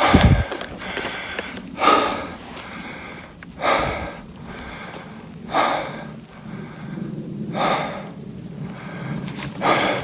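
A man breathing hard while hiking uphill, a heavy, breathy exhale about every two seconds.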